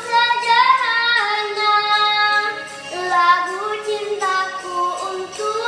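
A young girl singing in Indonesian over a musical accompaniment, holding long notes that bend and waver in pitch.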